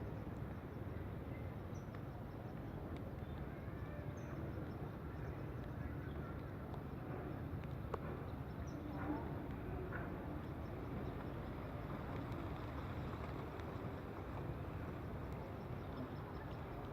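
Steady outdoor background noise with faint, scattered high chirps and a few light clicks.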